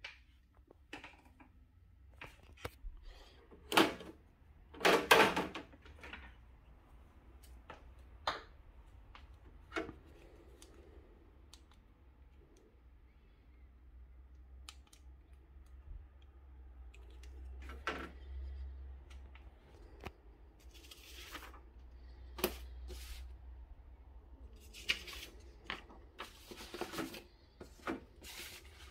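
Handling noise: scattered clicks, knocks and rustles as a plastic Marantz remote control is picked up and moved about, with the loudest knocks about four and five seconds in.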